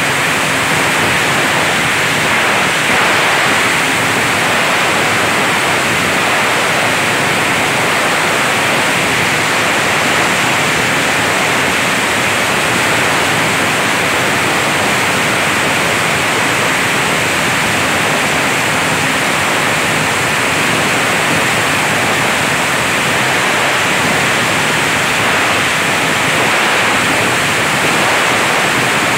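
Plastic pallet grinding machine (granulator) running steadily and grinding plastic pallet pieces into granules: a loud, even noise without breaks.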